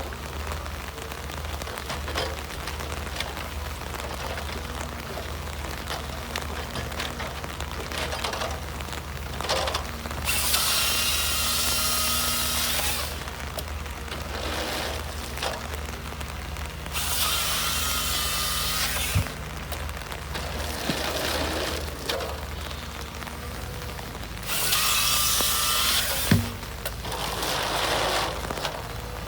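Harvester machine running steadily while its head's chainsaw bucks logs, with three loud cuts of a few seconds each, a high whine over the engine drone, and a couple of sharp knocks between them.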